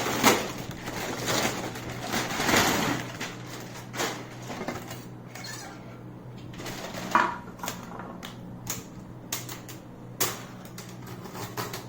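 Plastic and metal pedestal-fan parts being handled and fitted together by hand: irregular clicks, taps and knocks with some rustling, over a faint steady low hum.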